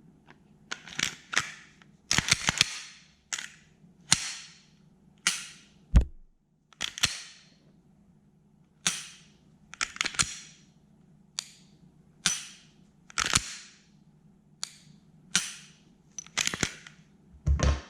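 Sharp metallic clicks from a Glock 19 Gen 5 pistol being worked by hand, about one a second, some coming in quick pairs.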